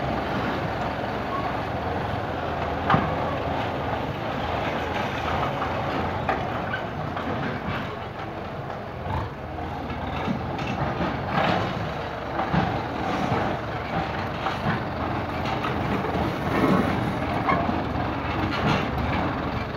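Kubota M95 tractor's diesel engine running steadily as it pulls a three-disc plough through hard, dry soil. Scattered knocks sound over the engine.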